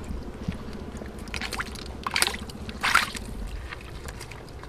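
Shallow rock-pool water sloshing and splashing as a gloved hand plunges in and gropes after a crab. Two sharper splashes come about two and three seconds in.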